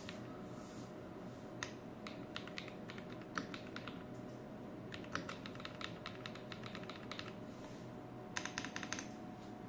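Typing on a Noir x Yunzii IF98 Pro mechanical keyboard: runs of key clicks with pauses between them, the longest run about five to seven seconds in, over a faint steady hum.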